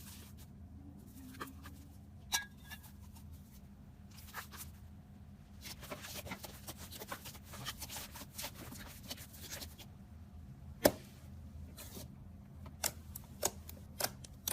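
Slime being handled and pressed by hand, giving a string of small sticky clicks and crackles, with one sharper click about three-quarters through and a quick run of clicks near the end.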